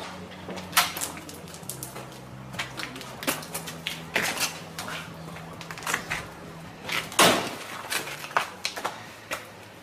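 Scattered knocks and clatters, the loudest about seven seconds in, from a man bound by the ankles to a chair shifting and straining against it on a concrete floor. A low steady hum runs underneath.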